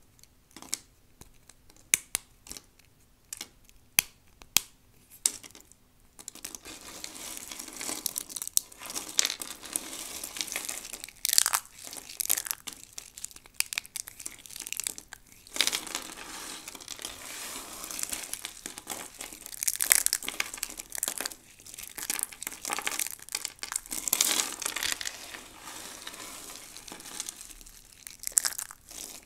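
Dry soap crunching as it is crushed. First come separate sharp snaps. About six seconds in, it turns to a dense, continuous crackle with repeated louder surges.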